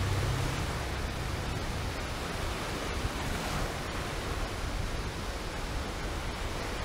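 Steady, even rush of sea waves, with no distinct breaks or strokes.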